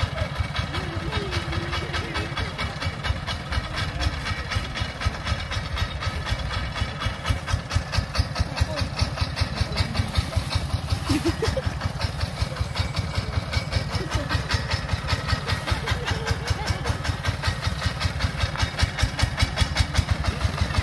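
Single-cylinder diesel engine of a công nông farm tractor-truck running steadily, its firing heard as an even, rapid thump of several beats a second.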